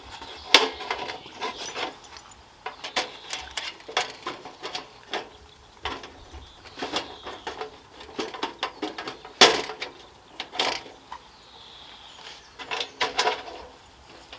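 Thin titanium panels and parts of a folding camping stove clicking and clinking as it is unfolded and clipped together by hand: irregular light metal knocks, with one louder knock about nine seconds in.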